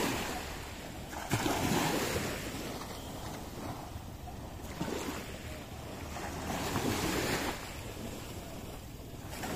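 Wind buffeting the microphone over small sea waves lapping in shallow water, swelling louder three times.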